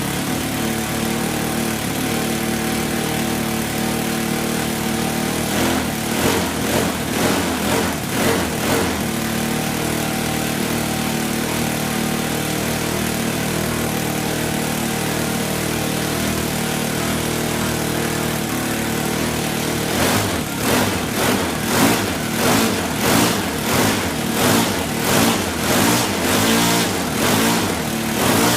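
Yamada YS F-120 model-aircraft glow engine running steadily with its propeller. About six seconds in, and again over the last eight seconds, the sound swells and dips about twice a second.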